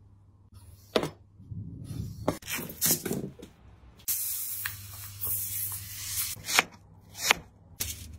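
Aluminium foil pulled off a roll and spread out, a crinkling hiss that starts suddenly about four seconds in and lasts about two seconds. Sharp clicks and knocks come before and after it.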